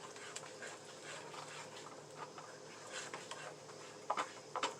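Spatula stirring sauce in a pan, with soft scattered clicks and scrapes and a few louder knocks against the pan near the end.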